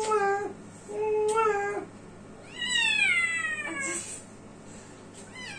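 A cat meowing three times while held: two shorter, lower calls, then a longer, higher call that falls in pitch.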